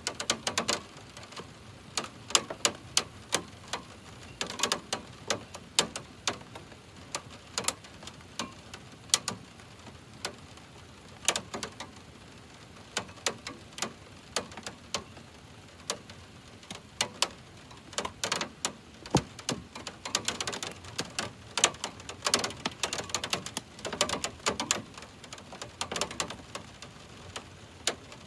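Raindrops hitting the metal casing of an air conditioner unit: irregular sharp ticks and pings, several a second and coming in clusters, over a faint steady hiss of rain.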